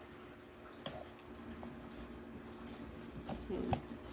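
Faint clicks and scraping as scissor blades puncture and peel a foil safety seal off the mouth of a plastic shampoo bottle, over a steady low hum.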